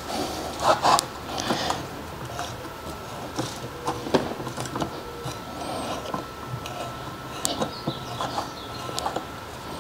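Tap in a T-handle tap wrench being turned by hand to cut threads in a blind hole for a Time-sert insert: irregular clicks, creaks and short scrapes of the tool and metal parts.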